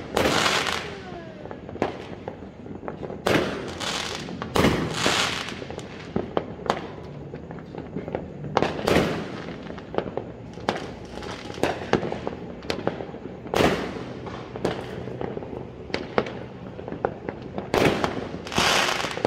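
Aerial firework shells bursting overhead: a string of sharp bangs every second or so, several of them trailing into a second or more of crackle.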